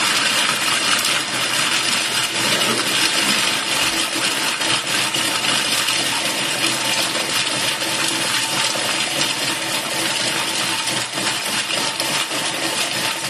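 Thermomix TM6 chopping plain biscuits at speed 4: the blades run steadily while hard biscuit pieces clatter against the stainless-steel bowl, breaking them into chunky and fine crumbs, and it stops abruptly near the end.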